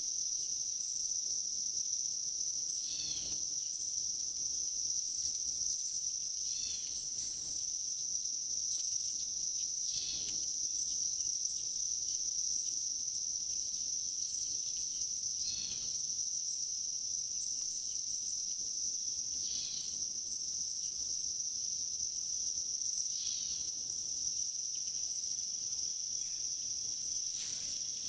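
Steady, unbroken high-pitched chorus of insects trilling, with faint short sounds every few seconds.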